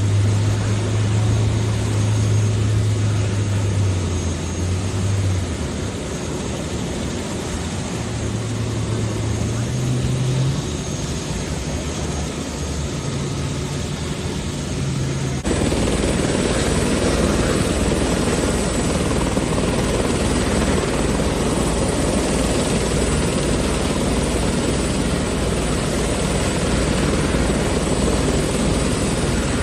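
Helicopter taking off, engine and rotor running. About halfway through the sound changes abruptly from a lower, steadier hum with stepping low tones to a louder, fuller rotor noise with a pulsing low end.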